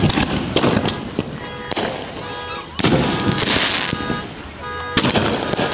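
Aerial firework shells bursting: three loud booms, at the start, about three seconds in and near the end, each trailing off in crackling.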